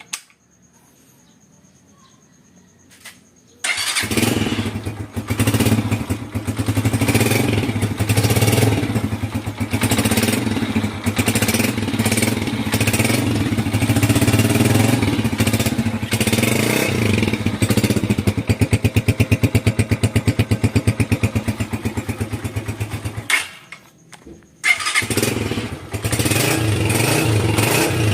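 Motorcycle engine fitted with Yutaka contact-point ignition starts about four seconds in and runs with a fast, even beat, its level rising and falling. Near the end it drops out for about a second and a half, then runs again.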